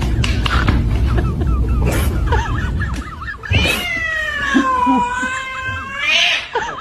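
A cat yowls in one long drawn-out meow, about two and a half seconds long, its pitch dipping and then rising again, in the second half. Before it there is a low rumbling noise with a few knocks.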